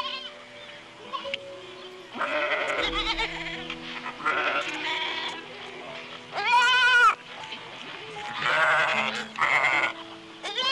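Goats bleating several times over calm background music. The loudest call is a clear, wavering bleat about two-thirds of the way through.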